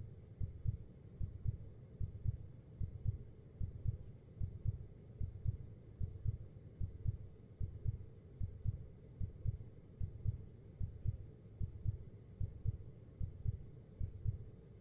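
A heartbeat sound effect: a steady, even rhythm of low, dull thumps.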